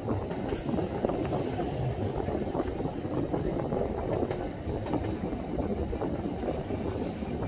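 Wind buffeting a smartphone's microphone over the running noise of a heritage double-decker tram moving along its track: a steady, rough rumble with no single event standing out.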